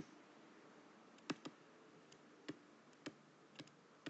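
Faint, scattered clicks and taps of a stylus on a writing tablet during handwriting: about half a dozen sharp ticks at uneven intervals, mostly in the second half, over near-silent room tone.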